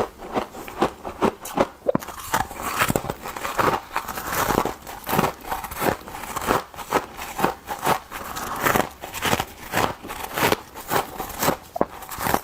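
Frost crunching, with quick irregular crunches several times a second.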